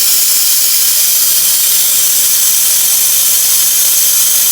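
Compressed air blowing out of an opened dental clinic air line in a steady, loud hiss. The line is being purged to check for water inside the pipe before the air polisher is connected.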